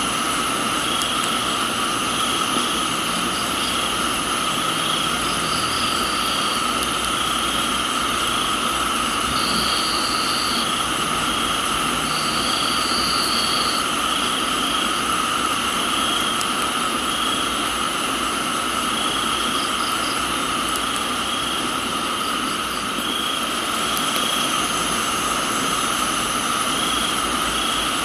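Steady rain with a chorus of crickets and other insects singing in continuous high trills, one of them pulsing in a regular rhythm, while a higher trill comes in several times for a second or so.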